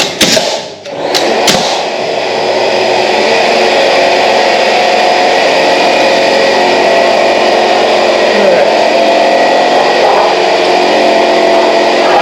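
A few sharp knocks, then a loud, steady mechanical drone, as of a motor running.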